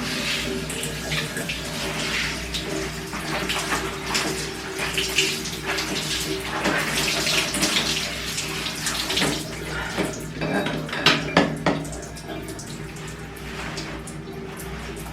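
Clothes being hand-washed in water: irregular splashing and sloshing, with a few sharper splashes about eleven seconds in.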